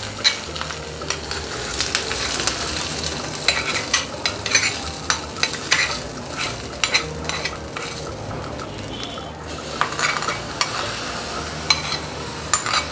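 Hot ghee tempering of cumin, chilli and grated ginger sizzling as it is poured into cold buttermilk, with a metal spoon scraping and tapping the small pan to get the last of it out. A steady hiss runs under frequent sharp clicks.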